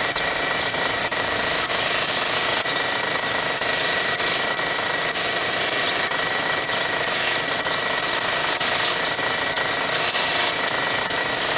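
Belt grinder running steadily with a high whine, its abrasive belt grinding down brown mallee hardwood knife handle scales.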